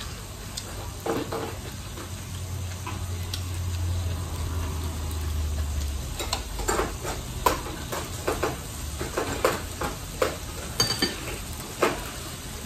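Beef and enoki mushroom rolls sizzling on a tabletop grill plate, with a low hum under the first half. From about halfway, a quick run of short clicks and taps of chopsticks and eating.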